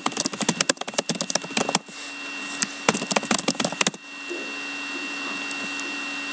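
Typing on a laptop keyboard: two quick runs of keystrokes, the second ending about four seconds in. A steady electrical hum with a faint high whine runs underneath.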